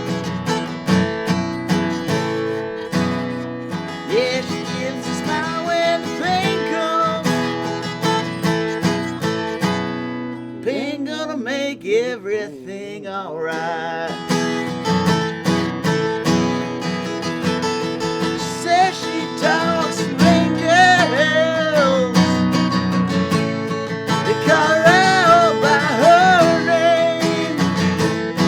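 Background music: a country-style song with strummed acoustic guitar and a singing voice, the vocal lines coming in and out.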